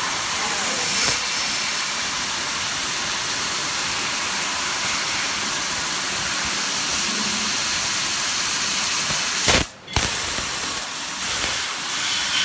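Fiber laser cutting machine cutting 4 mm stainless steel, its assist gas hissing steadily from the cutting nozzle. The hiss breaks off briefly about ten seconds in and resumes.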